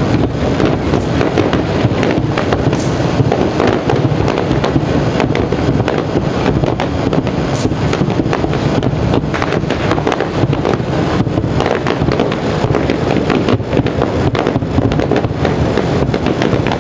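Fireworks bursting in rapid succession, a dense, unbroken crackle of many small reports that stays loud throughout.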